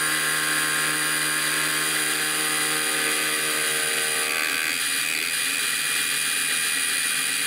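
Grizzly benchtop mini mill running, its end mill cutting into aluminum stock with a steady motor whine.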